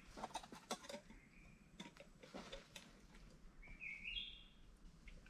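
Faint forest sounds: scattered light clicks and knocks through the first three seconds, and a short bird call that rises in two steps about four seconds in.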